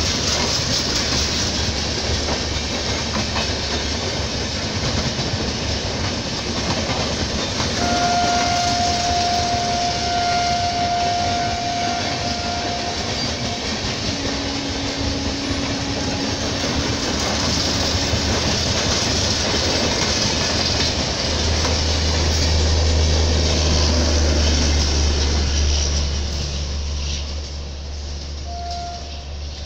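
LHB coaches of an express passenger train running past at speed: a steady rush of wheel and rail noise with clickety-clack, fading as the end of the train goes by near the end. A horn sounds as one steady note for about five seconds, starting about eight seconds in. A low drone grows loud for a few seconds in the latter part.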